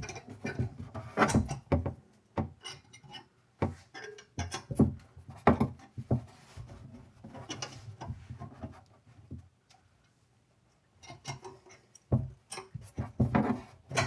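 Crescent wrench tightening a faucet's mounting nut on its threaded rod under a sink: irregular metal clicks, knocks and scrapes as the wrench is turned and repositioned, with a short pause about two-thirds of the way through.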